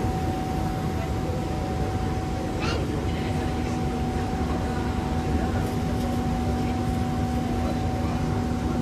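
Inside a Singapore MRT East West Line train carriage as it runs: a steady rumble of wheels on track under two constant tones, one low and one mid-pitched.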